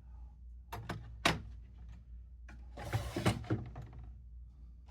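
Padlocks being handled and swapped: a few sharp metal clicks about a second in, then a rattling, clinking shuffle around three seconds in.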